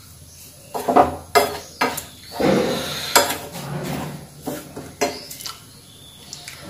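Metal spoon stirring a dry flour and semolina mix in a frying pan, scraping across the pan and clinking sharply against its rim several times. The mix is being dry-roasted over the flame.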